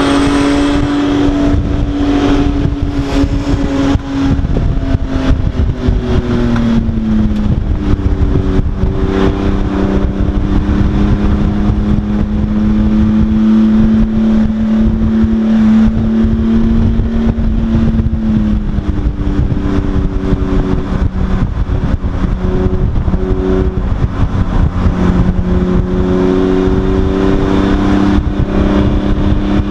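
Race car's engine heard from inside its stripped cockpit, running loud on track. The engine note eases down a step about seven seconds in, then holds nearly level with small rises and dips, over constant wind and road noise.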